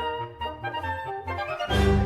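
Background music: a light tune of held notes over an evenly pulsing bass line, turning louder and fuller near the end.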